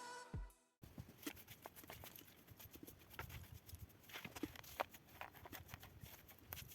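Background music cutting off under a second in, then faint, irregular clicks and light taps at an uneven pace.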